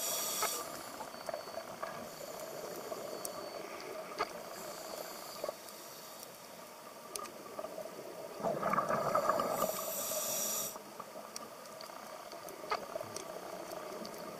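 A diver breathing through a scuba regulator underwater. There is a hissing inhale near the start; around eight to ten seconds in comes a gurgle of exhaled bubbles, followed by another hissing inhale. Faint scattered clicks run throughout.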